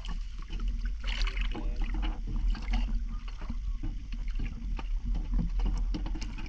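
Water sloshing and splashing at the surface as a swimmer moves through it, with many short irregular splashes over a steady low rumble.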